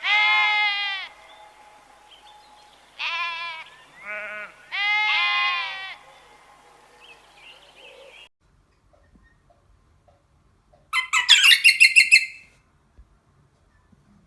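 Bleating from a goat or sheep kind of animal: four wavering calls in the first six seconds. After a pause, a quick run of high chirps lasting about a second and a half comes near the end.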